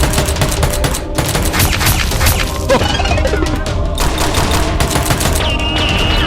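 Rapid bursts of dubbed gunfire sound effects over background music, with a few short falling whistle-like sounds near the end.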